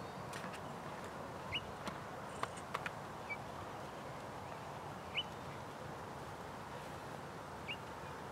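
Open-air ambience with a small bird giving a short rising chirp three times, a few seconds apart, and a few sharp ticks in the first three seconds.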